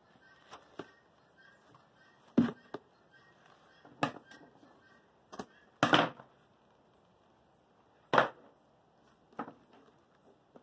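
Irregular sharp knocks and taps, about eight of them, from hands working a plastic bottle and craft materials on a table; the loudest come a little over two seconds in, around six seconds in and about eight seconds in.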